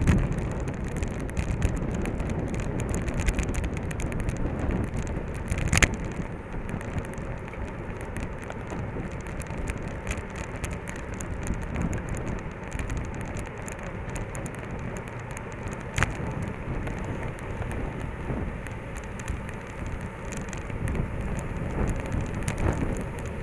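Road bike riding in a racing bunch, heard from a camera on its handlebars: a steady rush of wind and tyre noise with many small clicks and rattles, and a sharper knock about six seconds in and another near sixteen seconds.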